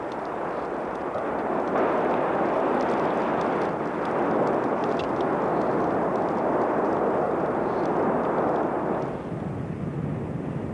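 Volcanic eruption sound: a steady rushing noise that swells about two seconds in and drops back near nine seconds, with a few faint ticks.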